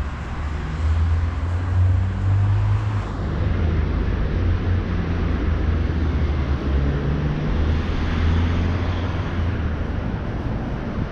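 Wind buffeting the microphone as a steady low rumble, mixed with street traffic noise.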